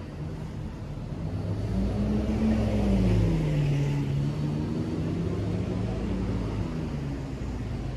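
A motor vehicle passing close by on the street: its engine note rises as it approaches, is loudest about three seconds in, then drops in pitch as it goes past, leaving steady traffic noise.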